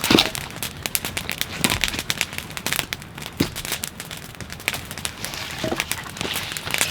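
Dry wood crackling and snapping in quick, irregular clicks, with a few louder, duller knocks.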